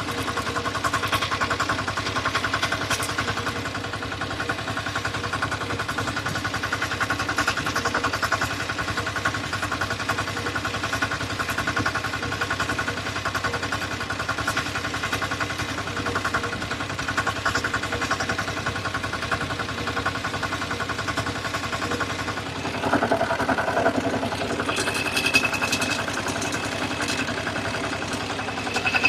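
Engine of a rice and wheat combine harvester running steadily at a constant speed. About two-thirds of the way through it grows louder, and a steady high whine joins it shortly after.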